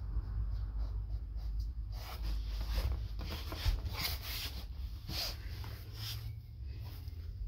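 Pencil scratching and rubbing on a large drawing board, a run of short dry strokes from about two seconds in until shortly after six seconds, over a steady low hum.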